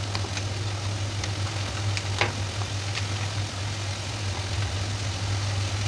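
A steady low hum, with chicken gizzards sizzling quietly in a wok and a few faint clicks.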